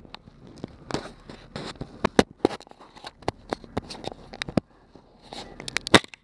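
Irregular clicks and knocks of a vehicle cabin and a headrest-mounted camera rattling as the vehicle bumps over rough ground. Near the end comes a quick cluster of louder knocks as the camera is handled.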